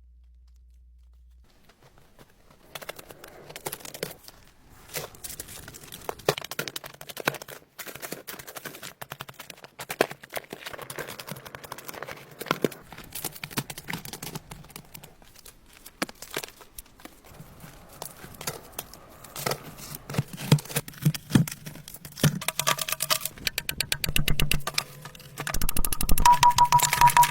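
Dense, irregular clicks and knocks, like repeated small impacts, starting a few seconds in; a low steady hum joins partway through, and music with a steady tone and beat comes in near the end.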